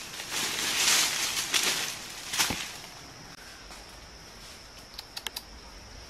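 Leaves and branches rustling and dry leaf litter crackling as a fruit-laden branch is pulled down by hand, with one sharp crack about two and a half seconds in. Then it goes quieter, with a few light clicks near the end.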